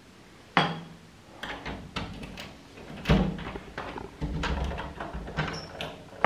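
Irregular series of sharp knocks and clunks, the loudest about three seconds in, with a low rumble a little after four seconds.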